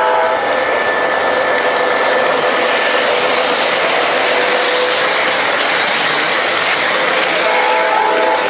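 O gauge three-rail model train running along the track, heard from on board: a steady, loud rolling rumble of wheels on the rails. The locomotive's horn chord ends just after the start and sounds again briefly near the end.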